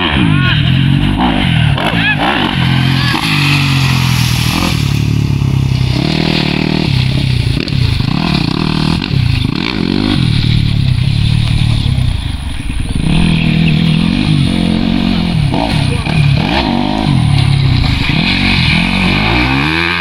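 Yamaha YZ250 dirt bike engine being ridden hard, revving up and dropping back again and again, its note rising and falling every second or two. It eases off briefly about twelve seconds in.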